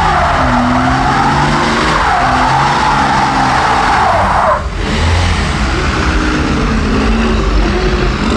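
A car doing a burnout: tyres squealing over a high-revving engine, the squeal wavering in pitch. A little over halfway the squeal slides down and cuts off, and the engine keeps running.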